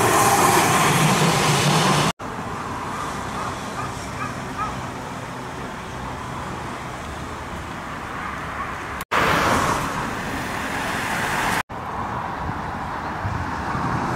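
A Hiroshima streetcar running past for about the first two seconds, then a sudden cut to steady, quieter road-traffic noise. There is a louder passing-traffic swell from about nine seconds in, with another abrupt cut shortly before the end.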